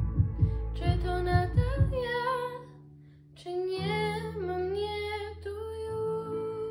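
A girl singing a pop ballad over a backing track. The drum beat drops out about two seconds in, and after a short pause she sings the closing held notes over sustained chords.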